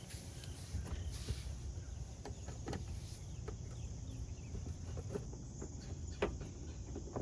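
Scattered light clicks and taps of hand tools and plastic fasteners as screws and push-pin clips are removed from a car's front bumper cover, over a low steady rumble.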